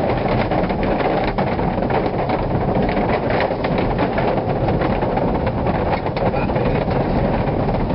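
Car tyres rolling over the wooden plank deck of a suspension bridge, heard inside the car: a steady loud rolling noise with many small knocks as the wheels cross the boards.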